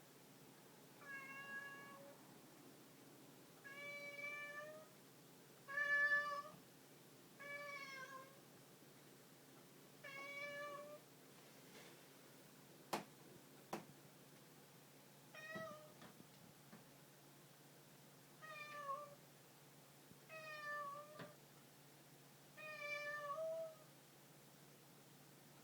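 A domestic cat meowing repeatedly: nine meows of about a second each, every two to three seconds, with a longer pause midway. Two sharp clicks fall in the pause.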